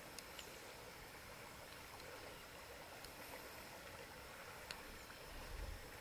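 Faint riverside outdoor ambience: an even, quiet hiss with a few soft ticks, and a low rumble coming in near the end.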